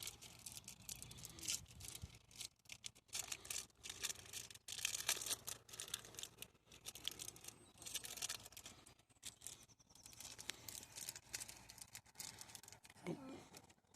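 Foil Pokémon booster pack being torn open and crinkled by hand, in faint, irregular crackling rustles.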